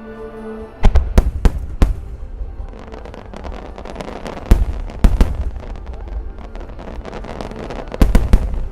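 Star mine fireworks barrage: aerial shells bursting in quick clusters. There is a run of about four sharp booms about a second in, two more around the middle, and a dense cluster near the end, with continuous crackling and rumble between them.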